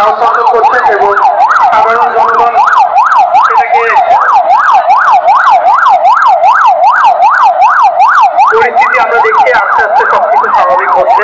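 Electronic siren sounding a fast, repeating up-and-down yelp as the alarm for an earthquake and fire evacuation drill.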